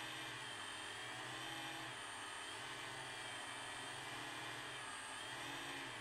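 DJI FPV drone's motors and propellers whining steadily, heard from the drone itself, the pitch dipping and rising slightly a few times with throttle.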